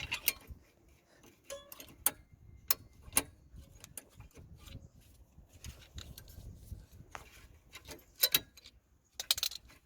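Rear brake caliper being worked off the disc and pads: scattered sharp metallic clicks and knocks, with a cluster of louder clacks near the end as it comes free.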